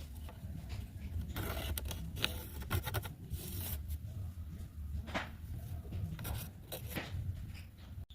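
Irregular scraping and rubbing strokes with sharp clicks among them, over a low steady hum; the sound breaks off abruptly near the end.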